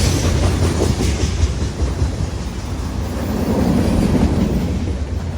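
Train passing close by: a steady low rumble with the wheels clacking over the rail joints.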